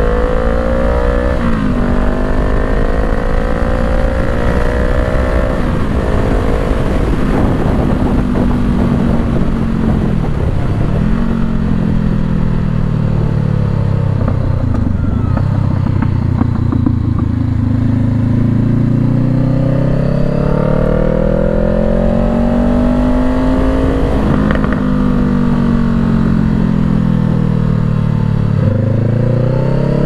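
Honda CBR500R's parallel-twin engine under way, its pitch climbing and dropping back with each upshift in the first few seconds. It sinks low twice as the bike slows around the middle, then climbs through the gears again in the second half.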